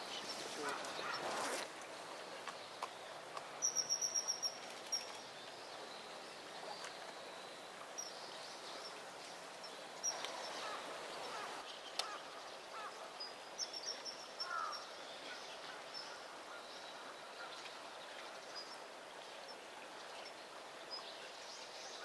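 Common kingfisher's shrill, high piping calls: a quick run of about half a dozen sharp notes about four seconds in, and a shorter run around fourteen seconds, over a steady background hiss.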